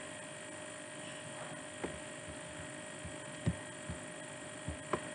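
Steady electrical hum with a faint hiss, broken by a few short soft clicks.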